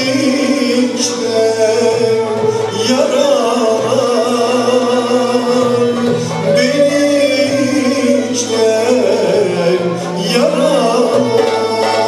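Male solo voice singing a Turkish classical şarkı in makam kürdilihicazkar, with a Turkish classical ensemble of violins and other instruments playing along and a steady bass line beneath.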